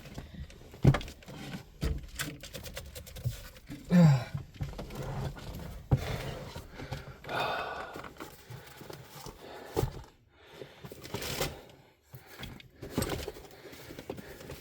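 Rummaging through tool cases and kits: irregular clatter and knocks of tools and plastic cases being moved, with a short grunt-like vocal sound about four seconds in.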